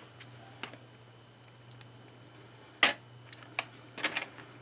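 A few sharp clicks and taps of paper and planner supplies being handled on a desk, the loudest a little under three seconds in and a small cluster near the end, over a steady low hum.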